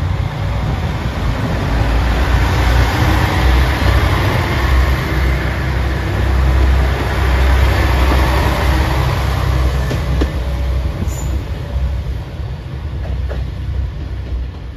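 JR Shikoku white Anpanman train, a 2000-series diesel multiple unit, pulling past at low speed with a steady heavy low rumble from its diesel engines and the wheels rolling on the rails. It fades a little near the end as it moves off.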